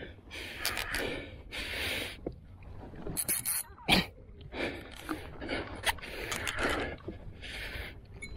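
Angler breathing hard in short, repeated gasps from the strain of fighting a hooked fish on a heavily bent rod, with one sharp knock about four seconds in.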